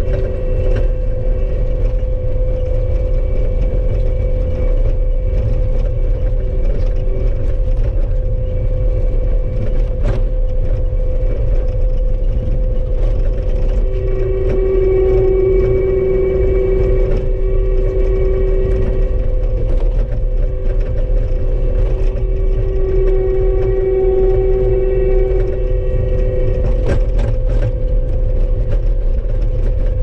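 Skid steer engine running under the operator, heard from inside the cab: a steady low rumble with a held tone over it, and a higher whine that swells louder twice, around the middle and again later.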